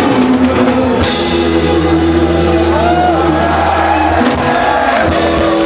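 Music from a band with a drum kit and sustained low notes, with a crash about a second in.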